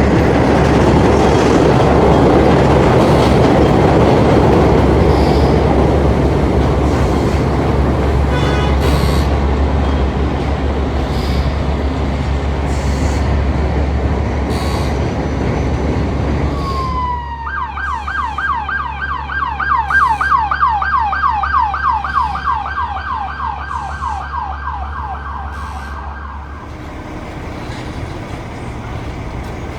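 Dense city traffic noise over a steady engine idle. About seventeen seconds in, an emergency vehicle siren starts up with a rising wail, then switches to a fast yelp that rises and falls several times a second. The siren stops about nine seconds later.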